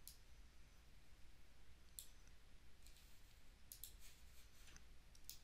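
A few faint, sharp computer mouse clicks, spaced irregularly, over near silence with a low steady hum.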